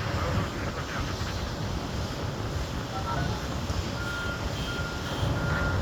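Heavy diesel mining machinery, a Cat 6015 hydraulic excavator and a Bell B50E articulated dump truck, running with a steady low rumble. From about four seconds in, a reversing alarm sounds a steady beep, about three beeps every two seconds.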